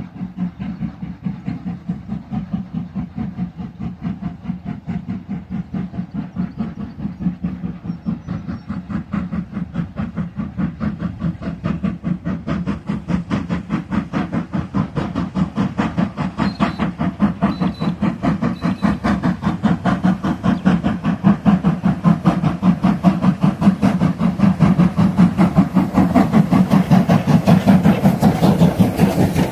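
Steam locomotive hauling a passenger train, its exhaust chuffing in a fast, even beat that grows steadily louder as it approaches.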